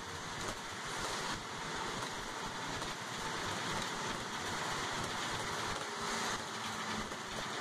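Steady hiss of a transit bus driving on a rain-soaked road, heard from inside the cabin: tyre spray and rain on the windshield over the bus's running noise.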